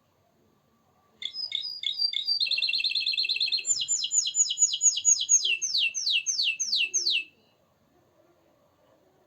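Domestic canary singing one phrase of about six seconds, starting about a second in: a few separate notes, then a fast trill, then a run of falling sweeps that slows down before it breaks off.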